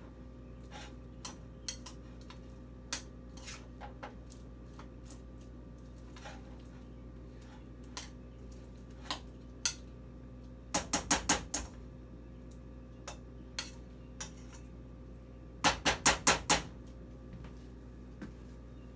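A spoon knocking and scraping in a pot as popcorn is stirred into hot sugar and Jell-O syrup: scattered clicks, with two quick runs of five or six louder knocks about 11 and 16 seconds in, over a steady low hum.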